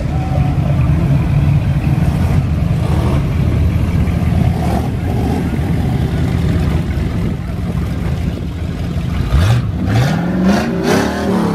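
Classic American cars driving slowly past in a line, their engines and exhausts giving a steady low rumble. Near the end an engine revs up twice, its pitch rising sharply.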